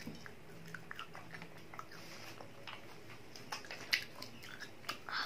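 A child chewing a fried chicken lollipop: faint, irregular mouth clicks, with a sharper click about four seconds in.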